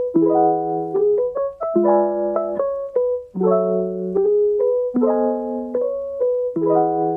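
Background music: a mellow piano playing slow chords, a new chord about every one and a half seconds, with short melody notes in between.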